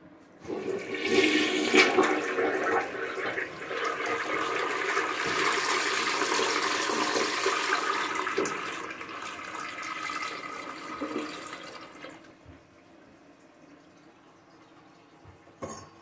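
Kohler Memoirs toilet with Ingenium flush flushing: a loud rush of water starting about half a second in, swirling down the bowl and fading away about twelve seconds in. A short knock follows near the end.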